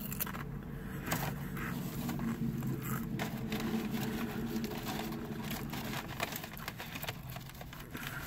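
Steady low hum of a car engine idling, heard inside the cabin, with soft chewing and wet mouth clicks over it.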